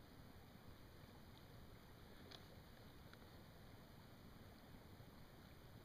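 Near silence: a faint steady hiss with a soft click a little over two seconds in.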